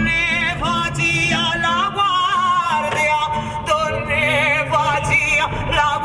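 Music with a singer holding long notes with wide vibrato.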